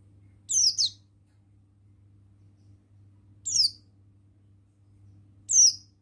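Buxtoni white-eye (pleci) giving three short, high chirps about two to three seconds apart, each a quick downward sweep. The first is doubled.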